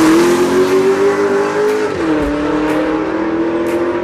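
Car engine accelerating hard down a drag strip: its pitch climbs, drops sharply at a gear change about two seconds in, then climbs again and levels off as the car pulls away.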